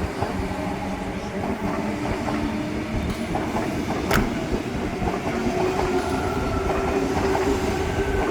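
Sydney Trains Tangara electric passenger train running on the line, wheels rumbling and clicking over the rails, with one sharp click about four seconds in and a steady motor hum that grows stronger in the second half.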